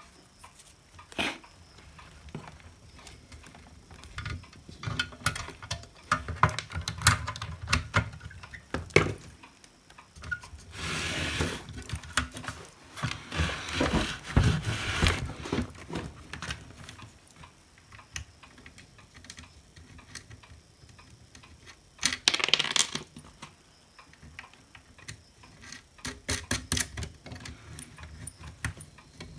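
Small plastic and metal parts of a hot air gun handpiece handled and fitted back together: irregular clicks, taps and knocks, with a few longer stretches of rubbing and rustling.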